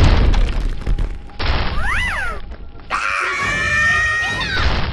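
Cartoon monster-fight sound effects: a heavy boom of a blast hitting at the start, then a short screech that slides up and down in pitch. From about three seconds in, a long kaiju roar trails off near the end.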